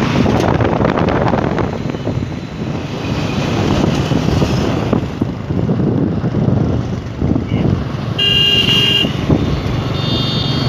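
Motorcycle running at speed with wind on the microphone and the rumble of a passenger train's coaches running alongside. About eight seconds in, a road-vehicle horn honks once for about a second.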